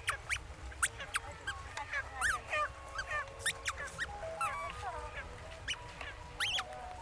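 Many small birds chirping and calling over one another in quick, short notes, some sweeping up or down in pitch, over a low steady rumble.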